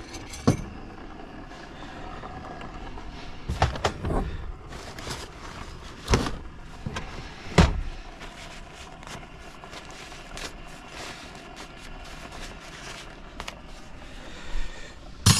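Half a dozen separate knocks and clunks, the loudest about six and seven and a half seconds in, over a steady low background noise.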